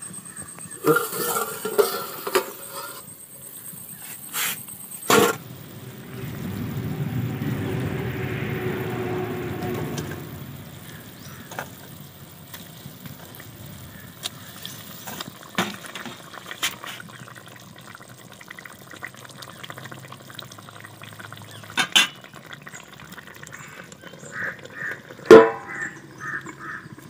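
Fish curry boiling in a two-handled kadai, a steady bubbling rush for a few seconds. Metal clinks and knocks come from the embossed steel plate used as a lid being lifted off near the start, and a sharp clank from it being set back on near the end.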